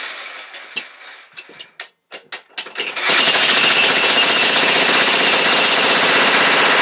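A jackhammer breaking up the basement floor: it stops, leaving a few scattered sharp knocks, then starts again about three seconds in and hammers steadily.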